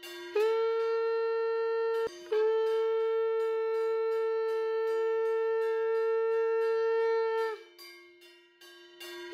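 Conch shell (shankh) blown in long blasts during a Hindu idol send-off: a short blast, a brief break about two seconds in, then a long held blast of about five seconds, and another blast starting near the end.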